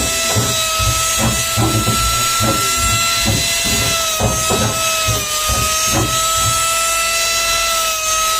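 Steady high whine of a small jewellery-making machine's motor, dipping slightly in pitch about five seconds in, with irregular low knocks about twice a second that thin out near the end.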